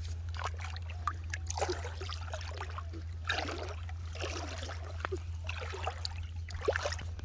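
River water splashing and trickling in uneven bursts over a steady low hum.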